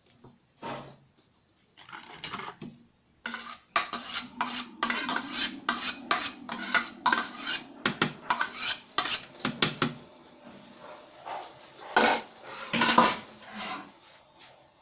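A spoon scraping and clinking against a pot as a cooked mixture is scooped out into cake moulds. It runs in a dense stretch of scrapes and knocks from about three seconds in until near the end.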